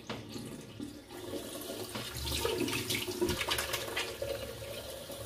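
Tap running into a bathroom sink while water is splashed onto the face by hand. The splashing is busiest from about two seconds in.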